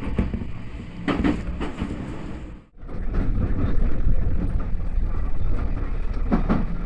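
Kintetsu local train running on the Yoshino Line, a steady rumble of wheels and motors on the rails. It drops out for an instant a little under three seconds in, then comes back louder.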